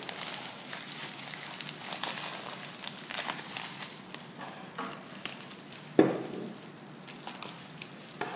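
Rustling, crinkling and small clicks of a gift's wrapping being handled and pulled open, with one sharp knock about six seconds in.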